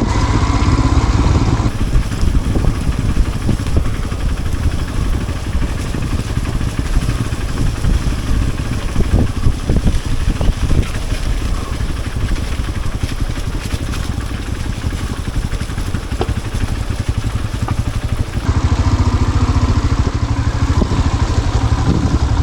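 Royal Enfield Himalayan's single-cylinder engine running at low revs on a rough trail, with frequent knocks and rattles from the bike over the uneven ground; the sound shifts about two seconds in and again near the end.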